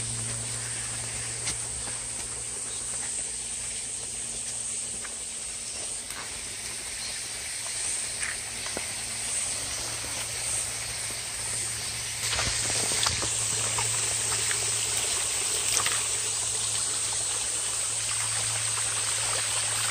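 Shallow stream water running over rock, a steady hiss that grows a little louder about twelve seconds in.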